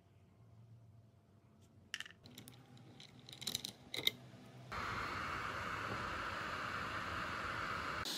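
A few light metallic clicks of tweezers against a small circuit board, then about halfway through a steady rushing hiss starts suddenly: a homemade hot air gun, built from a soldering iron and a 24 V blower fan, blowing air out of its nozzle.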